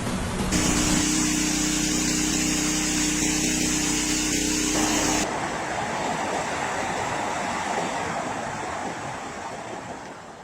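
A steady mechanical hum with a constant low tone. About halfway through it gives way to an even rushing noise, which fades out near the end.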